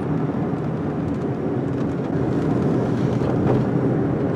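Steady low rumble of a car's engine and tyres on a paved road, heard from inside the cabin while driving.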